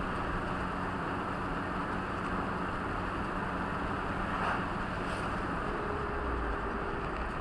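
Steady road and engine noise of a moving vehicle heard from inside, with a passing car whooshing by about four and a half seconds in.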